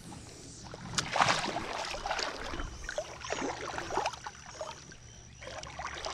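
Water splashing and gurgling close by, with a sharp click about a second in.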